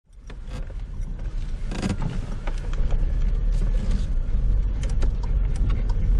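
Car road noise from inside a moving car: a steady low rumble with scattered clicks and creaks, fading in over the first second or so.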